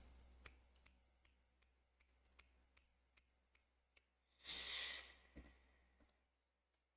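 Faint, evenly spaced small clicks, about two and a half a second, over a low steady hum. About four and a half seconds in comes one short, loud hiss. The hum cuts off near six seconds.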